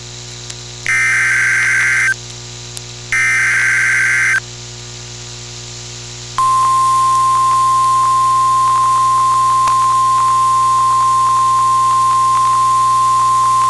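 NOAA Weather Radio alert signalling over a radio receiver. The last two of the three screeching SAME header data bursts, each about a second long, are followed by a pause of about two seconds. Then the steady 1050 Hz weather-radio warning alarm tone starts and holds, with light static crackles. This is the lead-in to a new warning broadcast.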